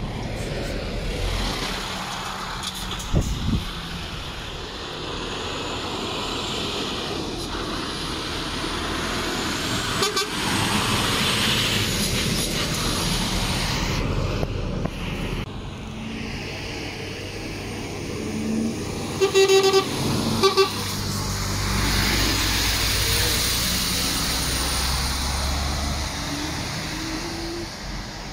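Lorries driving past with their diesel engines running and pulling away, their pitch climbing as they accelerate. A horn gives a few short blasts about two-thirds of the way through.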